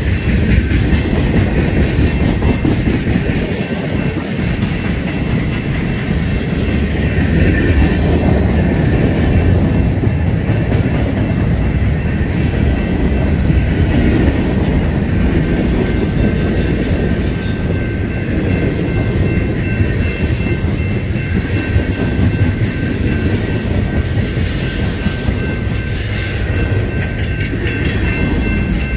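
Freight cars of a mixed manifest train, tank cars and loaded gondolas, rolling steadily past close by. Their steel wheels make a continuous rumble and clatter on the rails. A faint, steady, high-pitched whine runs through it and is stronger in the second half.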